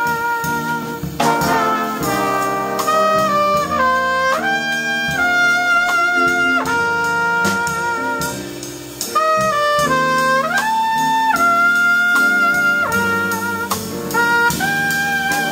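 Live band of trumpets, trombones and other horns with a drum kit, playing held chords that shift every second or so over steady cymbal strokes, with a brief drop in volume just before the middle.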